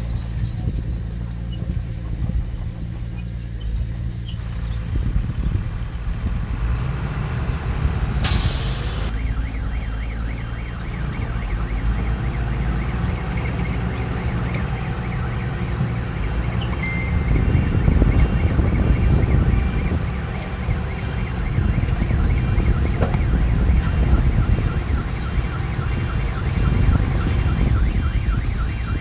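Diesel heavy-equipment engines running under load, the level swelling and easing. There is a short hiss about eight seconds in, and from about ten seconds on a vehicle reverse alarm beeps rapidly and repeatedly.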